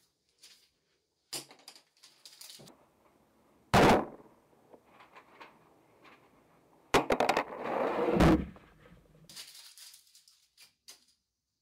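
Objects knocking and clattering on wooden furniture: scattered sharp knocks, a single loud strike about four seconds in, and a longer run of knocks with a rattling scrape from about seven to eight seconds.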